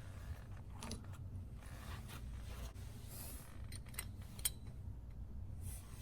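Faint clicks and light clinks of small hardware being handled, a few scattered ticks over a low steady hum.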